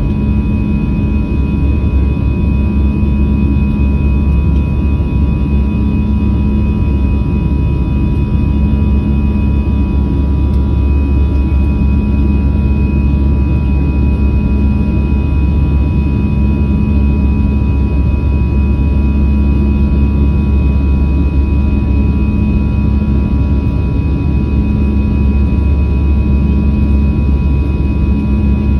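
Passenger airliner cabin noise in flight: the engines and airflow make a loud, steady low drone with a few faint constant whining tones over it.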